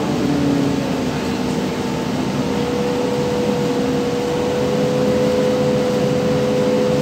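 Interior of a ZiU-682G-012 trolleybus on the move: the electric drive's steady whine over road and cabin noise. A lower tone drops in pitch during the first couple of seconds, and a higher whine holds steady from a few seconds in.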